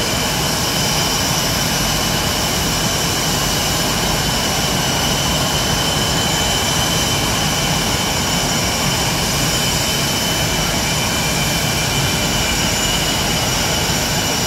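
Blue Angels F/A-18 Hornet jet engines running steadily: a loud, even rush with a high-pitched turbine whine on top.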